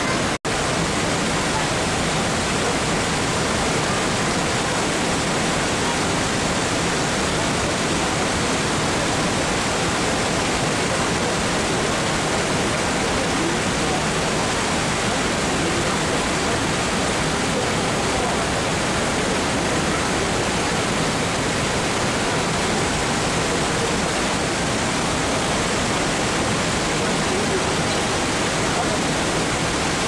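Steady rush of the Manavgat River pouring over the wide, low Manavgat Waterfall, with a momentary dropout about half a second in.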